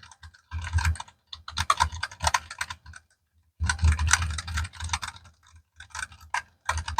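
Typing on a Keychron K1 low-profile keyboard with optical mint switches (tactile, with an early bump), heard close up. The keys clatter in quick runs, pausing briefly a few seconds in and again near the end.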